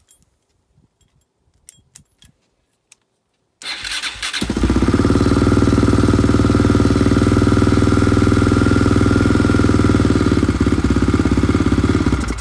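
A Yamaha Raptor 660's single-cylinder four-stroke engine, running with no choke fitted, is cranked about three and a half seconds in, catches almost at once and runs steadily, then stops abruptly near the end. A few faint clicks come before it starts.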